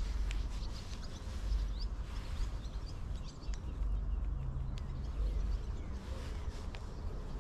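Birds chirping in short calls, mostly in the first couple of seconds and now and then later, over a steady low rumble.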